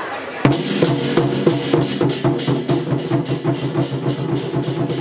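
Chinese war drums (zhan gu) come in with a sharp hit about half a second in, then beat a steady rhythm of about four strokes a second over sustained low tones.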